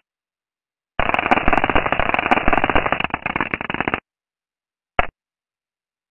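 Dense, rapid crackling static presented as the 'sound' of comet 9P/Tempel 1, a sonified space recording. After about a second of dead silence it plays for about three seconds and cuts off abruptly, followed by a brief blip of the same crackle a second later.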